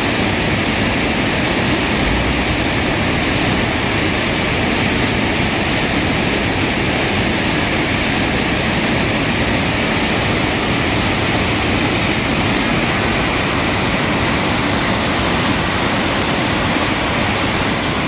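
A waterfall in high flow, white water pouring over a rock ledge with a loud, steady rush.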